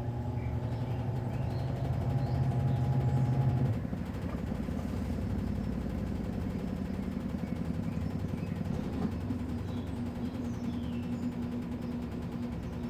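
Midea Wave-Agitator top-load washing machine running: a steady motor hum that changes about four seconds in, where the lower tone stops and the sound drops in level, going on as a different steady hum.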